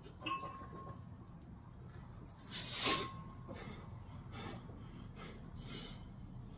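A weightlifter breathing hard while holding a loaded barbell at his shoulders mid-set: one loud, forceful breath about two and a half seconds in, with softer breaths every second or so around it.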